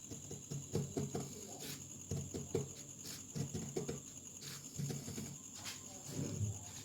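Tailor's scissors cutting a collar band out of fabric along chalk marks: irregular snips with crackling rustles of the cloth, and a few sharper snaps.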